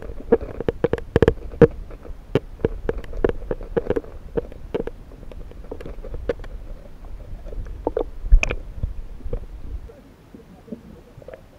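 Muffled underwater audio of a Rubik's cube being turned: irregular sharp clicks a few times a second over a low rumble, with one louder knock about eight seconds in. It gets quieter near the end.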